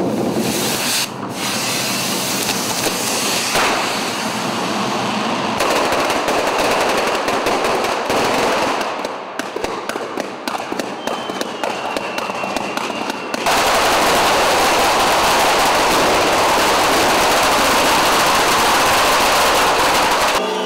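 Firecrackers and fireworks packed on the Florentine Scoppio del Carro cart going off in a dense stream of rapid bangs and crackling. Around nine seconds in it thins to separate rapid-fire bangs. From about thirteen seconds it turns louder and continuous.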